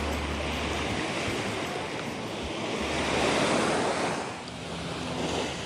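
Small surf waves breaking and washing up over sand, with wind rumbling on the microphone. The wash swells about three seconds in and eases off briefly near the end.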